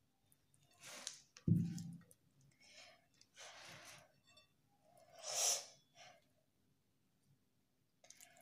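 Several short breathy puffs of air, the loudest about five and a half seconds in, with light hand-handling noises, likely blowing to cool the very hot laddoo mixture while it is shaped by hand. One dull thump about a second and a half in.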